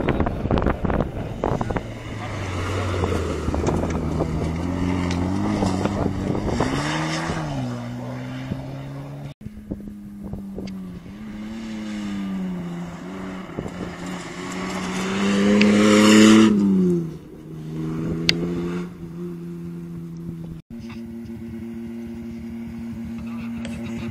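Rally-raid cars at speed on gravel stages, one after another: engines revving up and down through the gears over the rattle of loose gravel. The loudest pass comes about two-thirds of the way through, its engine note climbing then dropping away. Near the end a side-by-side buggy's engine holds a steady note.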